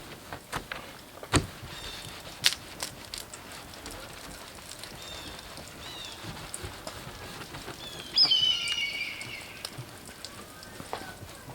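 Car wash brush scrubbing wet, soapy paint on a truck, a patter-like swishing with a few sharp knocks, working at baked-on tree sap. About eight seconds in comes a brief, loud, high squeal.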